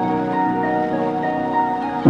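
Background music: sustained pitched notes under a short, repeating higher melody.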